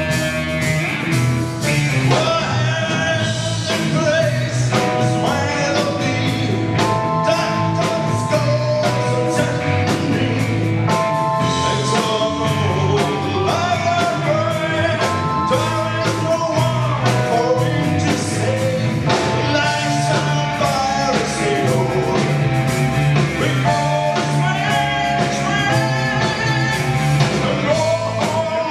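Live rock band playing a song: drum kit with a steady beat, electric guitars, bass and keyboard, with a lead singer.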